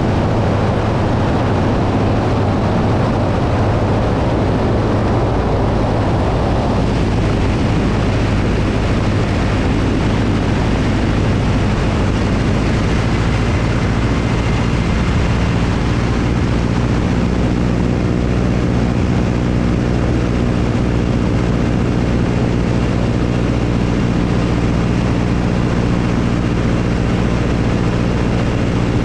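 Light airplane's propeller engine running steadily in flight, with heavy wind rush on the microphone. A quarter of the way in the rushing lessens and the engine's steady drone stands out more clearly.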